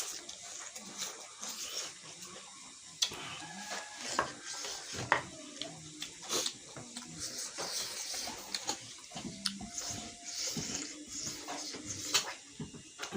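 Close eating sounds from a spicy fish-head and vegetable meal: chewing, with scattered sharp clicks and small knocks of dishes.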